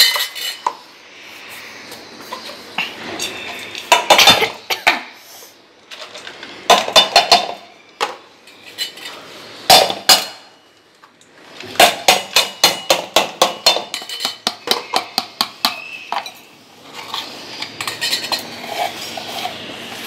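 A spoon clinking, knocking and scraping against a steel bowl and plastic containers while soft bird food is scooped and mixed, in bursts. Midway there is a run of quick taps, about four a second.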